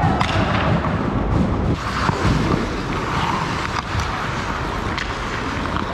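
Ice hockey rink during practice: skate blades scraping the ice and a few sharp clacks, over a steady low rumble.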